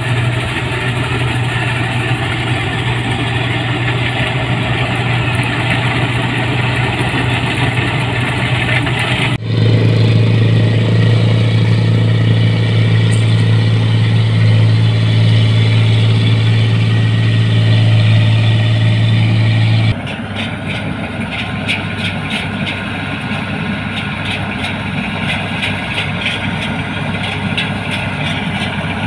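Combine harvesters running while harvesting rice: a steady, loud diesel engine drone with the whir of the cutting and threshing machinery. The sound changes abruptly twice as it cuts between different machines.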